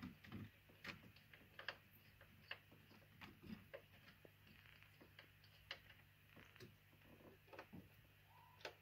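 Faint, irregular small clicks and taps of tools, screws and trim parts being handled during reassembly, over a low steady hum.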